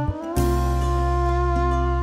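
Instrumental background music: held chords over a steady bass, changing chord about a third of a second in.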